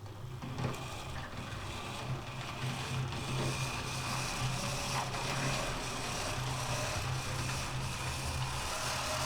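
Model railway locomotive running on track with a short freight train: a steady motor hum with wheel and rail noise and a few light clicks. It starts as the train moves off and grows steadily louder as it comes closer. The locomotive's small electric motor has been freshly greased and oiled.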